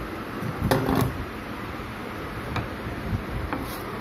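Handling noise from a computer power supply board and its sheet-metal case: a short clatter about a second in, then a few light clicks, over a steady background noise.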